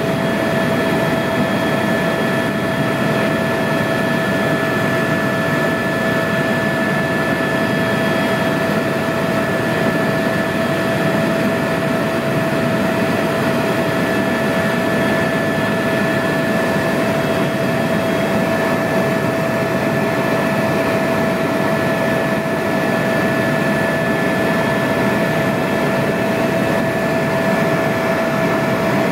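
Eurocopter EC130 helicopter in cruising flight, heard from inside the cabin: a loud, steady drone of turbine and rotors with a few fixed whining tones running through it.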